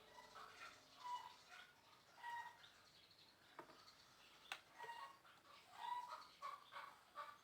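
Faint, scattered bird chirps in the background, with two sharp clicks a little past the middle.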